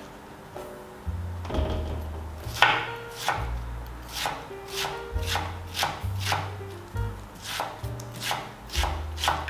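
Kitchen knife dicing cucumber on a wooden cutting board: a steady run of chops, about two a second, starting about a second and a half in.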